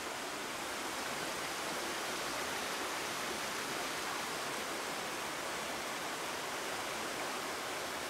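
Steady rush of running water from a small three-tier waterfall and its creek, running low on water.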